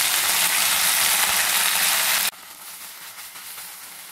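Wet, freshly washed fenugreek leaves sizzling loudly as they hit hot oil in an iron kadai, the wash water on them spitting into steam. The loud hiss cuts off suddenly a little over two seconds in, leaving a quieter frying sizzle as the leaves are stirred.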